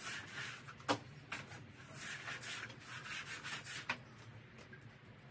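Flat mop rubbing back and forth over balcony decking in several scrubbing strokes, with a sharp knock about a second in and another near four seconds.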